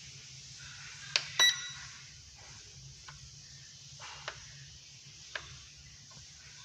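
A sharp click and then a short electronic beep about a second in, followed by a few faint clicks, from a toy quadcopter drone's electronics while its propellers are still.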